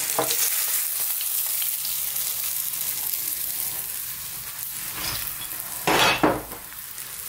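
Hot oil sizzling steadily in a frying pan as the last pieces of floured sea bass are lifted out; the sizzle grows quieter over the last few seconds. A short louder noise comes about six seconds in.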